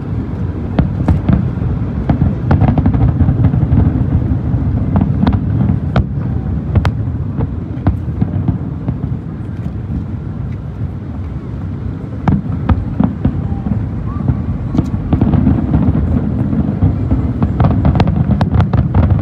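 Aerial fireworks shells bursting in a continuous barrage: a steady low rumble with sharp cracks and pops scattered through, most crowded in the last few seconds.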